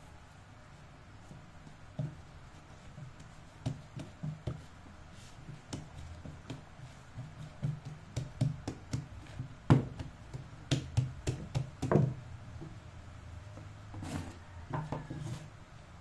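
Bread dough being kneaded and shaped by hand on a silicone pastry mat on a table: irregular soft thuds and taps as the dough is pressed and turned, thickening in the second half, with the loudest knocks about ten and twelve seconds in.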